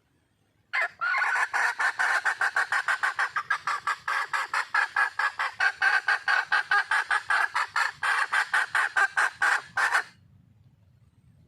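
A red junglefowl hen calling to attract a male: a rapid, even run of clucking notes, about five a second, kept up for some nine seconds and then stopping abruptly.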